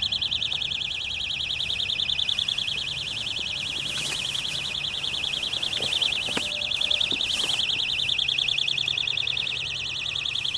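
Loud, high-pitched, rapidly pulsing electrical buzz, like a crowd of crickets, which is traced to an electrical box. A few soft knocks sound over it.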